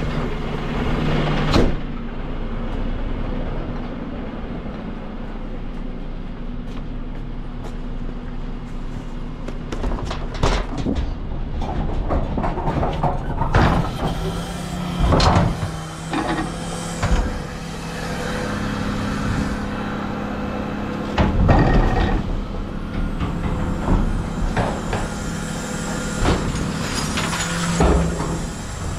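A rear-loading refuse truck's diesel engine runs at a steady note, rising to a higher steady note while the bin lift works. Metal clanks and knocks come as a four-wheeled communal wheelie bin is lifted and tipped into the hopper, loudest a little past two-thirds of the way in.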